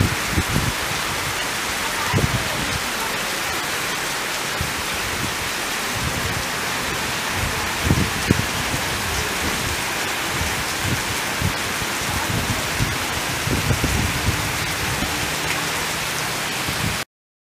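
Heavy rain pouring steadily onto flooded mud ground and garden plants, a dense even hiss with a few short low rumbles. It cuts off suddenly near the end.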